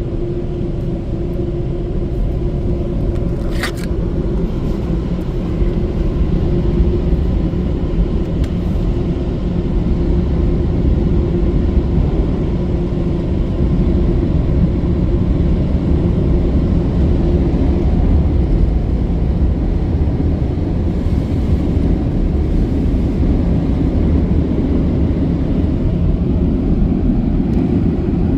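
Car-wash Thrust Pro air dryers blowing steadily over the car during the drying cycle, a loud, even, low roar with a steady hum in it. A brief click sounds about four seconds in.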